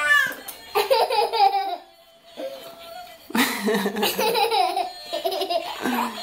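A baby and a young girl laughing in repeated bursts of giggles, with a short lull about two seconds in.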